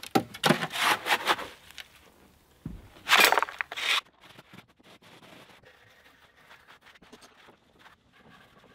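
A shovel scraping and scooping stiff, dry-mixed concrete from a wheelbarrow, several rough strokes in the first second and a half and a louder one about three seconds in. After about four seconds the sound drops to faint scraping and light taps as the concrete is spread in the form.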